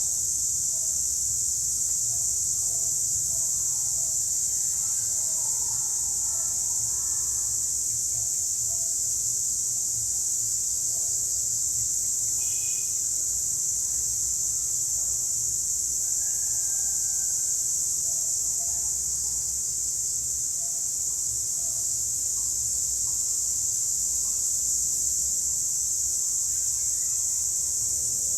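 Cicadas in chorus: a continuous, steady high-pitched buzz. Faint, brief, scattered sounds lie underneath.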